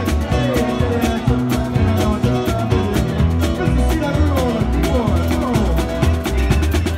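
Small live band with guitars, bass and drum kit playing an upbeat song: a guitar plays sliding, bent notes over a driving bass line and steady cymbal strokes.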